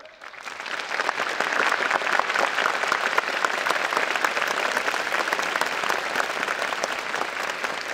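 A large crowd applauding with many hands clapping, swelling over the first second and then holding steady.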